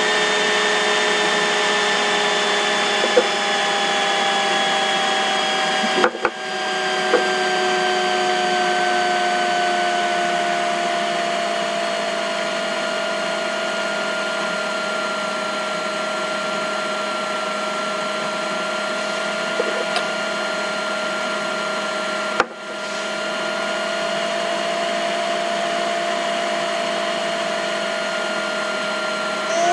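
Steady whine of a small electric motor, its pitch sagging slowly over the first half. It briefly cuts out about six seconds in and again about twenty-two seconds in, each time picking up again within a second.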